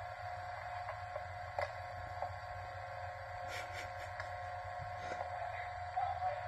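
Steady electrical hum with a thin, constant high tone and hiss, with a few faint clicks. This is the noise floor of an old VHS tape playing through a television, with no programme sound audible.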